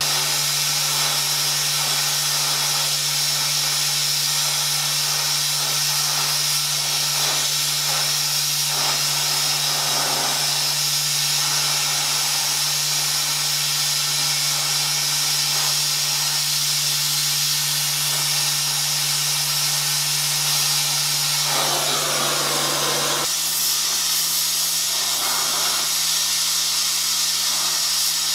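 Gas torch flame burning with a steady hiss as it heats a steel frame joint for silver soldering, its tone shifting slightly about three-quarters of the way through.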